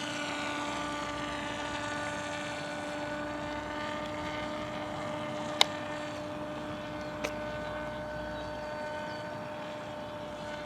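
Radio-controlled model airplane's motor and propeller droning at a steady pitch as it flies, fading slightly near the end. Two sharp clicks, one a little past the middle and one about a second and a half later.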